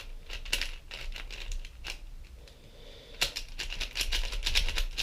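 MoYu Aosu WR M 4x4 speed cube, set to tight tension, being turned by hand: scattered plastic clicks at first, then a rapid flurry of turning clacks in the last two seconds.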